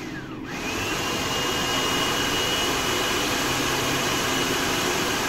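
Electric food processor motor running with the chopping blade, its whine rising in pitch during the first second and then holding steady. It is chopping a bowl of kale and sweet peppers.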